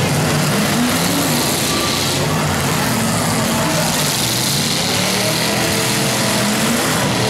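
Several full-sized demolition derby cars' engines running loudly at once, revving up and down in pitch as the cars smash and spin in the dirt.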